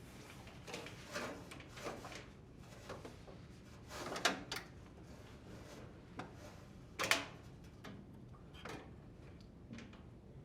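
Faint handling noises of a dryer drive belt being looped around the spring-loaded tension pulley and motor shaft: a few scattered scrapes and knocks, the loudest about seven seconds in.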